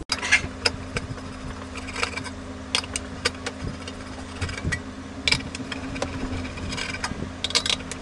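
A Phillips screwdriver backing out the screws of a computer power supply's metal cover, with irregular small metallic clicks and scrapes, over a steady low hum.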